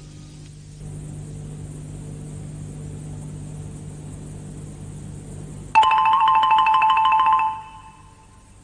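A low steady background drone, then about six seconds in a loud electronic ringing trill: two high tones warbling rapidly together for under two seconds before fading out.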